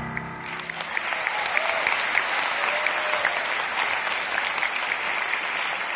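Audience applauding, a dense patter of clapping that swells in just as the last piano-and-strings chord dies away.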